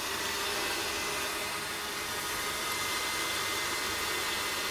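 KitchenAid stand mixer running steadily with its whisk attachment, whipping egg whites for a meringue: an even motor whir with a faint steady whine.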